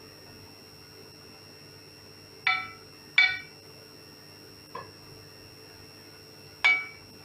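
Metal slotted skimmer clinking against a cast-iron kazan: four sharp, ringing clinks, the third one faint, over a faint steady hum.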